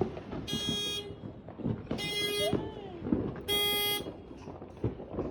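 A car horn honks three times, each blast about half a second long and about a second and a half apart, with faint scattered pops behind it.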